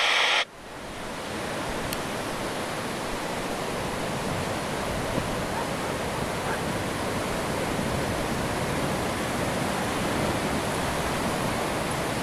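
Small waves washing on a sand beach, heard as a steady wash of surf. A brief loud burst of hiss comes right at the start, before the surf fades in.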